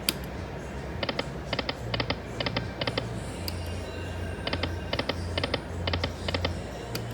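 Lightning Link Moon Race video slot machine spinning, its reels stopping one after another: a run of short clicking sounds, each with a low thud, about every half second.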